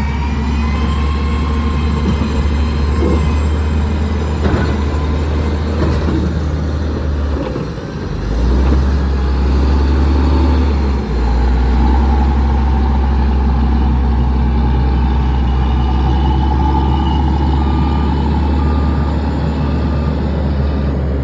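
Heavy diesel engine of a motor grader running steadily, its low drone shifting abruptly twice partway through. From about the middle on, a reversing alarm beeps about once a second.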